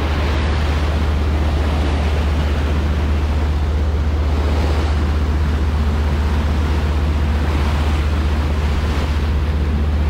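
Propeller wake churning and hissing behind the stern of a commercial fishing boat under way, with a steady low rumble from the boat and wind on the microphone.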